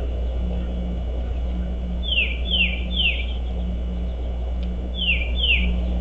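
A songbird giving clear, downslurred whistled calls, three in quick succession about two seconds in and two more near the end, over a steady low rumble.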